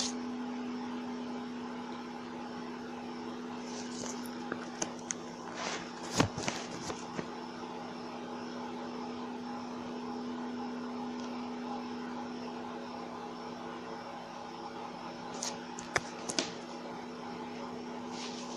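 Steady electrical-sounding hum at one pitch, with a few short clicks and taps between about four and seven seconds in and again near sixteen seconds.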